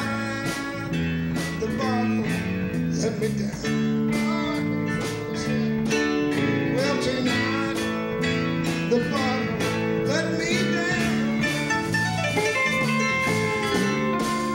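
Live country-blues band playing an instrumental passage: electric guitar lead with bent notes over held keyboard chords, bass and a steady drum beat.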